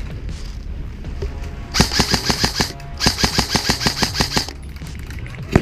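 Krytac CRB electric airsoft rifle firing two full-auto bursts, a short one and then one about a second and a half long, each a rapid even rattle of shots, followed by a single sharp crack near the end.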